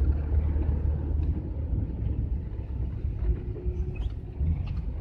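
Engine and road noise of a moving GAZelle van, heard from inside the cab: a steady low rumble.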